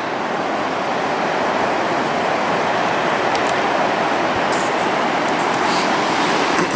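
Ocean surf breaking, a steady rush that grows slightly louder.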